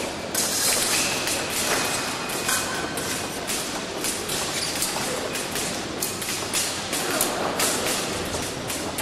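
Épée fencers' feet stamping on the piste and blades knocking during a bout: a scatter of short thuds and taps over the steady din of a large sports hall.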